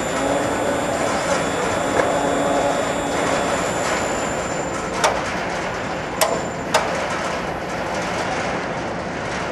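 Steady mechanical noise of a ferry's deck machinery, with a faint hum over the first few seconds and several sharp metallic clanks, about two, five, six and seven seconds in.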